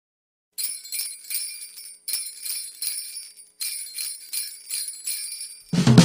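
Sleigh bells shaken in a steady rhythm, about three shakes a second, as the intro to a Christmas song. Near the end the rest of the music comes in with a heavy bass.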